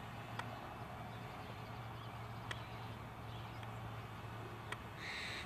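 Faint outdoor ambience: a steady low hum with a few faint clicks, and a single bird call near the end.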